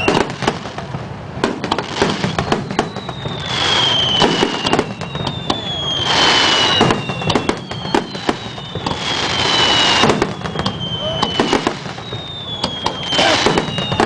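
Aerial fireworks display: shells bursting with dense crackling and popping, and several whistles that each slide slowly down in pitch, one every couple of seconds.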